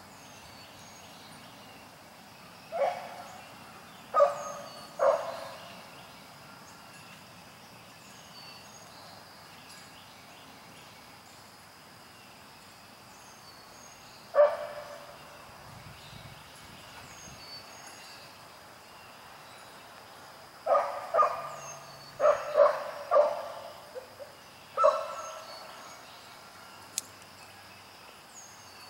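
A rabbit dog barking as it runs a rabbit's trail: a few barks a few seconds in, a single one in the middle, then a quick run of barks near the end.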